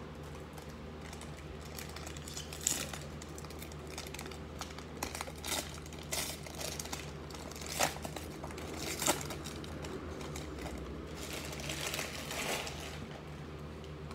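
Trading-card value pack wrapper crinkling and tearing as it is ripped open by hand: several sharp crackles, with a longer rustle near the end.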